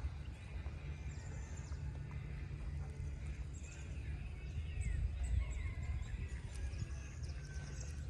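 Emu hissing: a low rumbling sound that swells to its loudest about five seconds in. Small birds chirp high above it.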